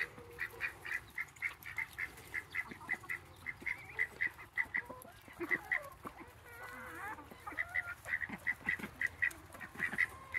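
Poultry calling in a steady run of short, same-pitched notes, about three or four a second, breaking off for a couple of seconds past the middle, where fainter wavering chirps come through.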